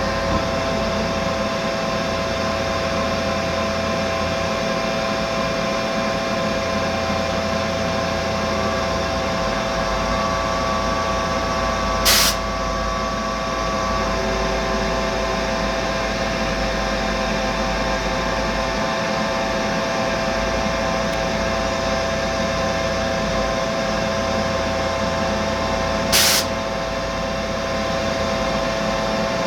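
Mazak Integrex multitasking CNC machine running while finish-machining an aluminium part: a steady whine of several held tones over a running hum. Two brief loud bursts of noise come about 12 and 26 seconds in.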